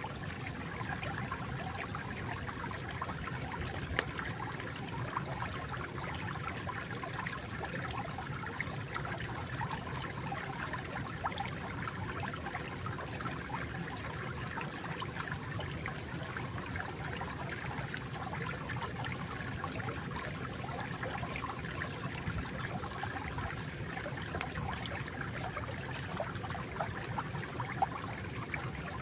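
Water flowing and trickling steadily over stones, a small stream with a continuous babble of small splashes.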